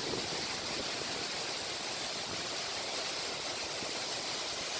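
Steady, even rush of water pouring down a waterfall.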